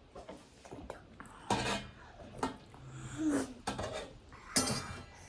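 Eating utensils knocking and scraping against bowls and plates in several short, separate clinks.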